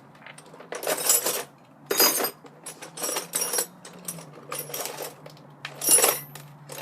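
Loose metal tools clinking and clattering in a toolbox as a hand rummages through it, in a series of irregular bursts, the loudest near the end.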